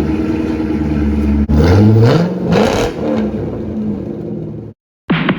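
1999 Corvette's 5.7 L LS1 V8, through an exhaust with the cat and muffler deleted, running just after starting and blipped twice, rising in pitch and falling back to idle. It cuts off abruptly near the end, with music starting right after.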